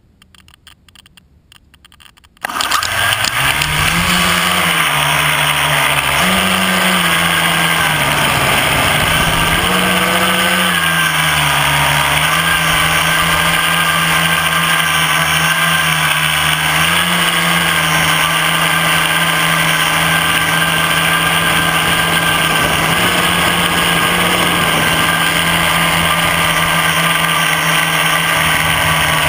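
A homemade tricopter's three brushless motors and propellers spin up suddenly about two seconds in, then run with a loud, steady buzzing whine heard from on board. The whine's pitch rises and dips with the throttle several times in the first dozen seconds, then holds steady in flight.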